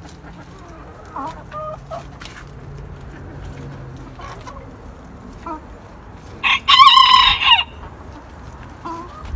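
Backyard chickens: a few soft clucks in the first couple of seconds, then a rooster crows once, loudly, for about a second, two-thirds of the way in.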